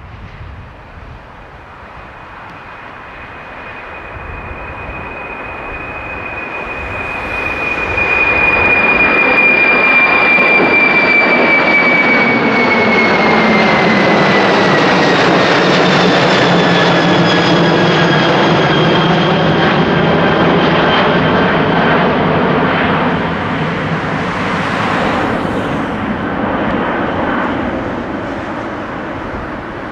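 Boeing 747-400F freighter's four jet engines at takeoff power as it climbs out overhead. A high whine and rumble grow louder, loudest about eight seconds in as the plane passes over. The whine then glides down in pitch, and the sound slowly fades as the plane climbs away.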